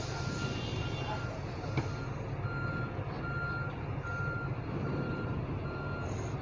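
Vehicle reversing alarm beeping steadily, a short single-pitch beep a little more than once a second, over a low steady rumble. One sharp tap comes just before two seconds in.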